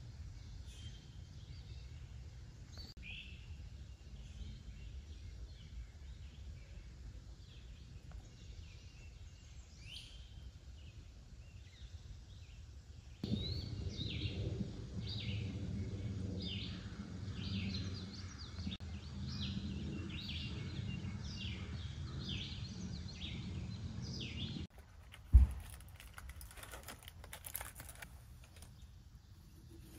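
Birds singing and calling, with a quick repeating song of two or three notes a second taking over a little before halfway, over a steady low rumble. Near the end, a single sharp thump, then scattered light clicks.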